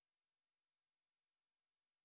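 Near silence: only a faint, even noise floor, with no sound from the stirring.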